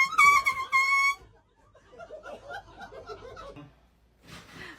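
Air horn blasting in short, quick bursts for about a second, then people chuckling.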